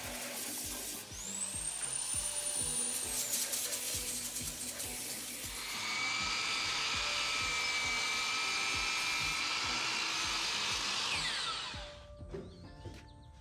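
Handheld narrow belt sander (power file) grinding wood, then a DeWalt sliding miter saw's motor running steadily and winding down near the end. Background music with a steady beat plays underneath.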